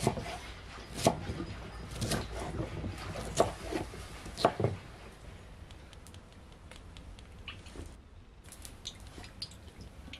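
Chef's knife chopping green peppers on a thick wooden cutting board: five sharp knocks at uneven intervals of about a second. Then, more faintly, oil trickling in a thin stream into an empty cast-iron pot.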